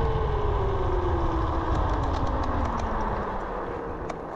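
Kaabo Wolf Warrior electric scooter at speed: its hub-motor whine falls steadily in pitch as the scooter slows, and the wind and tyre rumble fade with it.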